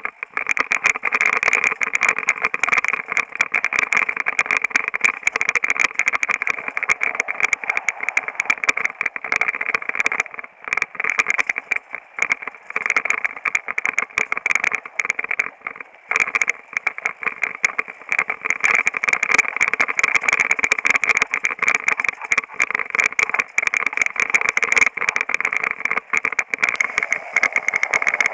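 A mountain bike rattles and clatters continuously as it is ridden fast over a rough dirt trail. The sound is a dense run of knocks and jolts heard up close from the moving bike, easing briefly a few times.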